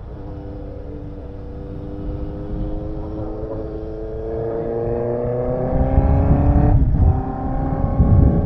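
Honda CB650R inline-four motorcycle engine accelerating, its pitch rising steadily through one gear. Near the end it breaks off briefly at an upshift, then climbs again from a lower pitch, over low wind rumble on the microphone.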